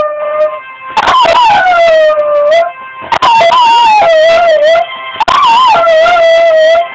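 Jack Russell terrier howling along to a home phone's ringtone: three long, wavering howls, each about a second and a half with short breaks between, over the steady tones of the ringtone melody.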